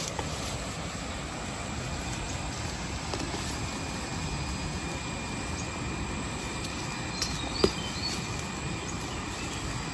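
Steady outdoor rumble and hiss, with a few faint high chirps and one sharp click about seven and a half seconds in.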